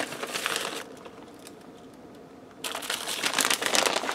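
Plastic bag of shredded cheese crinkling as it is handled and shaken out, in two spells: for about the first second, then again from about two and a half seconds in.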